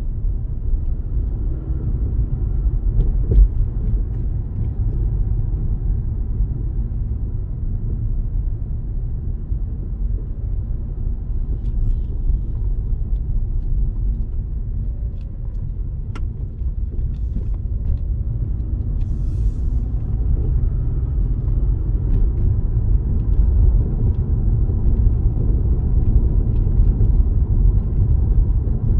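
Car interior noise while driving: a steady low rumble of tyres and engine heard from inside the cabin.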